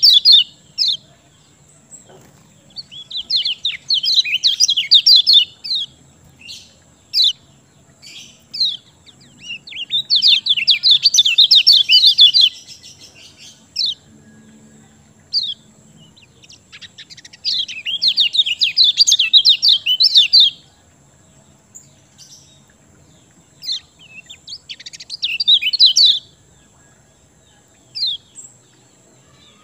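Kecial kuning songbird in full song: fast twittering phrases two to three seconds long, four times, with single sharp chirps between them.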